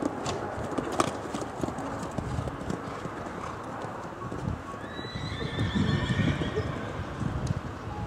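Grey Selle Français mare cantering on a sand arena: a steady run of dull, muffled hoofbeats. A horse whinnies briefly about five seconds in.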